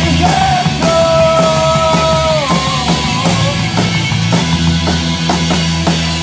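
Live rock band playing loud, punk-style rock: a steady drum beat under sustained distorted chords. About a second in, a long high note is held, then drops in pitch about halfway through.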